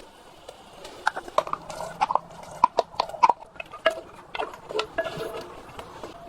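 An irregular series of sharp knocks and clicks, several with a short hollow ring, beginning about a second in and thinning out near the end, over a faint steady hiss.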